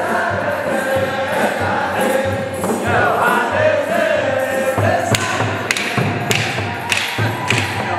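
Ethiopian Orthodox mahlet chant: a group of voices singing together over a steady low thumping beat. About five seconds in, sharp claps join in on the beat, roughly every half second.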